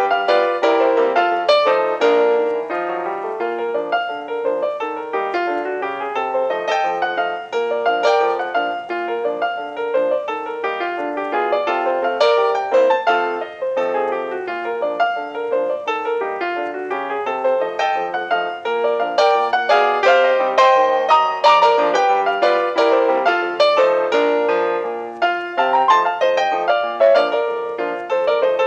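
Piano music with many quick, busy notes.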